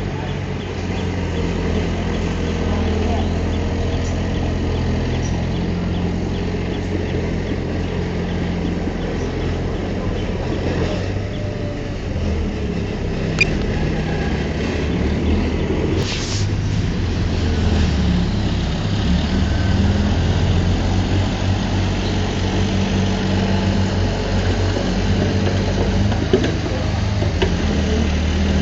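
Diesel engine of a heavy earthmoving machine running steadily, with a sharp knock a little past the middle.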